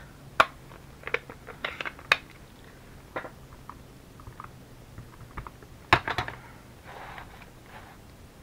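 Hands handling craft supplies on a desk: a scattered series of small clicks and taps, with a sharper cluster about six seconds in, over a faint steady hum.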